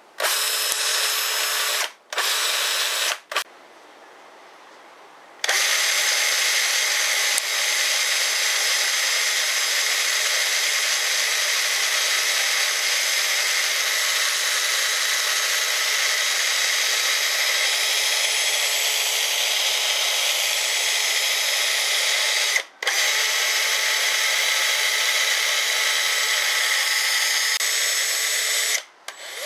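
Black & Decker 20V Max Matrix cordless drill (BDCDMT120) running with no load, its motor and chuck spinning in a steady whine. It starts with two short runs and a pause of about two seconds. Then it runs steadily for most of the rest, with one momentary release of the trigger, and stops just before the end.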